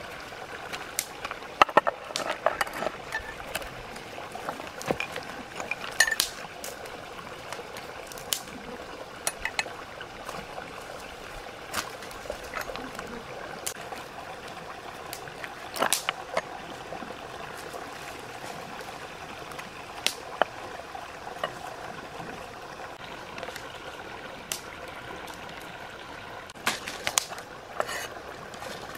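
A large cleaver scaling and cutting a fish on a wooden chopping board: irregular scrapes and sharp knocks of the blade on the board. Under it runs the steady babble of a stream.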